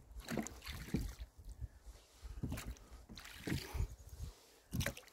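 Oars rowing a small boat: about five strokes, spaced unevenly a second or so apart, each a short sharp knock and swish. A low rumble of wind on the lavalier microphone runs underneath.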